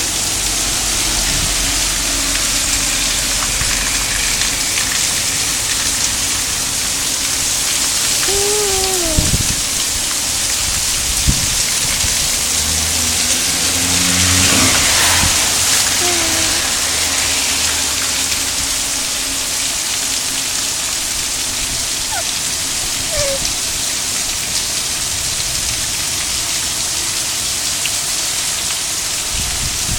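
Steady heavy rain hissing down. A low rumble swells and fades about halfway through.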